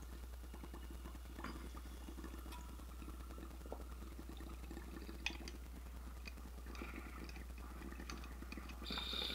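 Water bubbling steadily through a glass dab rig as a dab is inhaled through it, over a steady low hum, with a brief hiss near the end.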